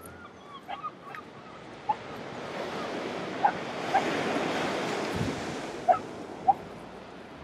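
Sea waves breaking and washing up a shingle beach, swelling to a peak about four seconds in and then easing, with a few short, sharp animal calls over the surf.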